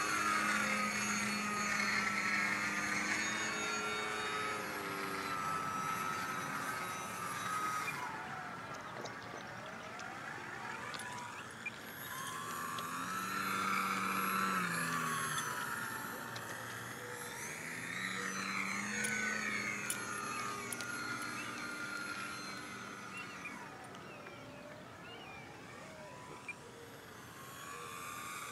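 Aerokinetix Yak 55M Pro radio-controlled aerobatic model plane flying overhead, its motor and propeller whining. The pitch rises and falls over and over, and the sound swells and fades as the plane hovers nose-up and makes low passes.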